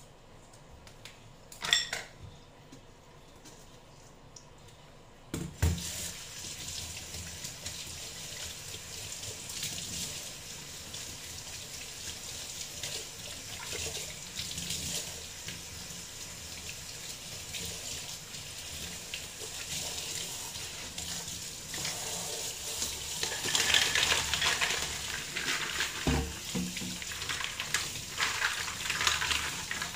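Kitchen tap running into a stainless steel colander of mussels in a sink, with the shells clattering as they are rubbed and rinsed by hand; the water starts with a knock about five seconds in, and the clattering grows busier near the end. A single sharp click comes about two seconds in, before the water.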